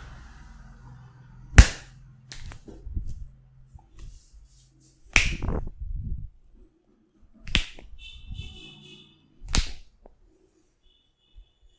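Sharp hand slaps and snaps from a barber's massage: four loud strikes a couple of seconds apart, with fainter taps between them.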